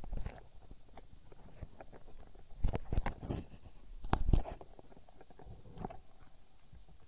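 Muffled underwater knocks and thumps picked up through a speargun-mounted camera's housing, in a few short clusters with the loudest around three seconds and a little after four seconds.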